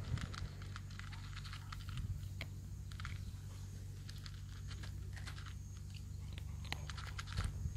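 Two cats crunching dry kibble: a quick, irregular run of small crunches over a low steady rumble.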